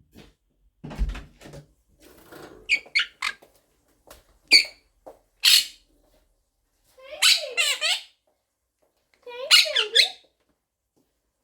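Blue Quaker parrot (monk parakeet) giving a string of short squeaky chirps, then two longer warbling chatter calls that waver in pitch. A low bump about a second in.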